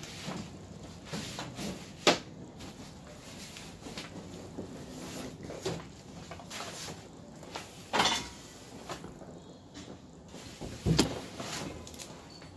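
Handling noises: scattered knocks and bumps, with sharper ones about two seconds in, about eight seconds in and near eleven seconds.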